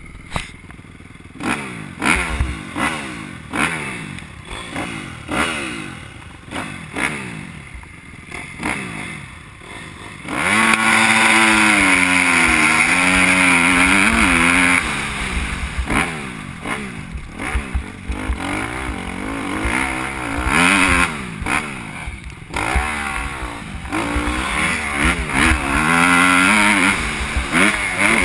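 Motocross bike engine heard on board, revved in short blips about once a second. About ten seconds in, the throttle opens wide and the engine runs loud and hard, its pitch climbing and dropping through gear changes as the bike rides the dirt track.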